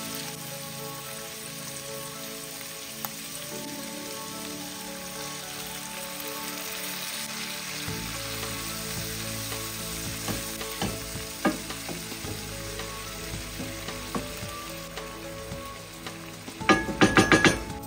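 Onion and canned tuna frying in a pan with a steady sizzle, a wooden spoon stirring and scraping through it with scattered clicks. Near the end the wooden spoon is knocked several times in quick succession against the pan, the loudest sound.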